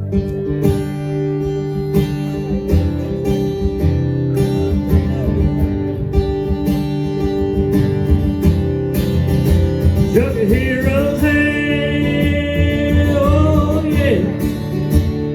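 Live country band playing an instrumental break, led by strummed acoustic guitar. About ten seconds in, a long held melodic note with vibrato slides in over the band for about four seconds.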